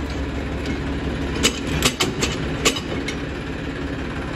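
Massey tractor's diesel engine idling steadily, with a few sharp metal clanks in the middle as the straw reaper is coupled to it.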